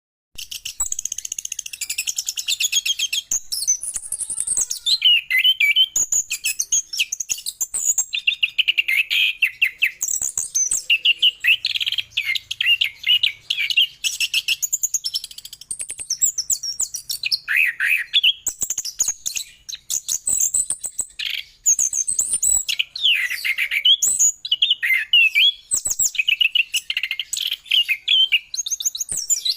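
Orange-headed thrush (anis kembang) singing a long run of rapid, high chirps and trills with brief pauses, its song laced with lovebird-like calls.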